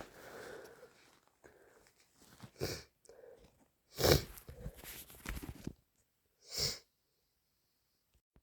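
A person with a head cold sniffling and sneezing: short, breathy nasal bursts with quiet gaps between them. The loudest comes about four seconds in, followed by a rougher run, and a short sharp one comes a little over two seconds later.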